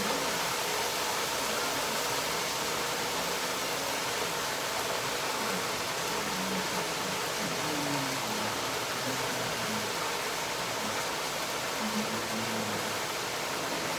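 Chicken pieces frying in hot oil in a deep fryer: a steady, even sizzle.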